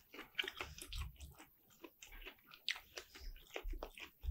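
A person chewing a mouthful of turkey meat close to the microphone: soft, irregular mouth clicks and smacks.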